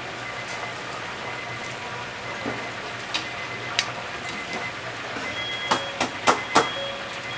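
Chicken frying in hot oil, a steady sizzling hiss. A few sharp clacks cut through it, with four louder ones close together near the end.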